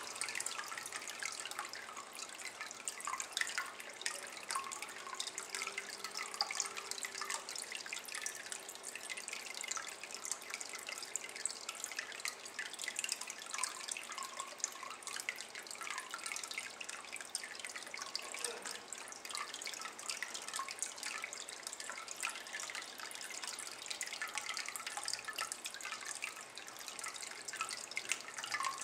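Thin stream of water falling into a shallow ceramic basin of water: a steady trickle of small drips and splashes.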